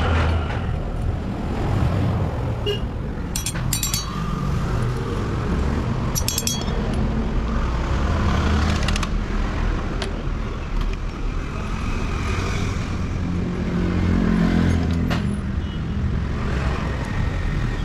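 A motor vehicle engine running steadily, with two brief bursts of metallic clinks, about three and a half and six seconds in.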